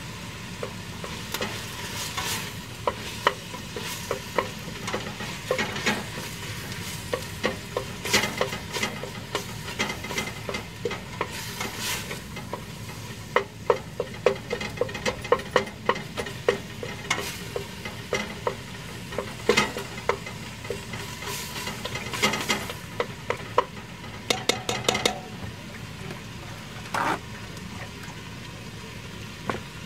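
Ground beef sizzling as it browns in a pot, with a utensil scraping and knocking against the pot again and again as the meat is broken up and stirred. The scraping thins out near the end while the sizzle goes on.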